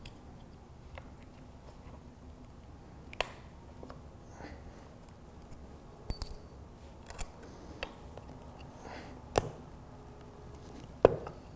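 Small metal retaining clips clicking and tapping against the plastic sensor housing and aluminium body of a GM electronic throttle body as they are handled and pressed into place, a scattered run of sharp clicks, the loudest near the end. The clip is not snapping home.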